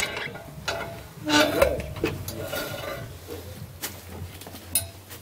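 Scattered knocks and clinks of objects being handled and carried, with a louder clatter about a second and a half in.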